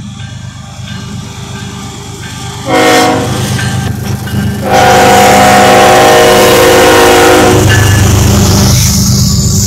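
CSX freight train's diesel locomotive sounding its horn for a grade crossing, several notes at once: a short blast about three seconds in, then a long blast, over the engines' rumble. Near the end the locomotives pass close by with a loud low diesel rumble.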